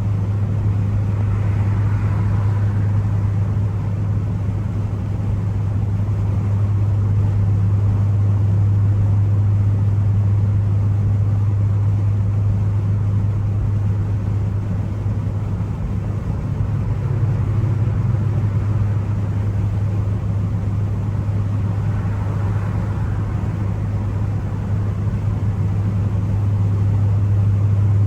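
Turbocharged Ford Focus ST engine with road noise, a steady low drone while cruising at an even speed.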